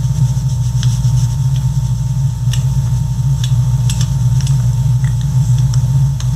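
Steady low hum, with a scattering of short sharp ticks and scratches from a felt-tip marker colouring in on a clear plastic sheet.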